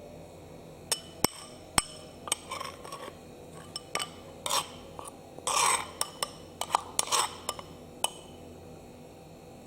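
Kitchen utensils and containers being handled: a string of sharp clicks and knocks, with short scraping and rustling sounds between them, stopping about eight seconds in.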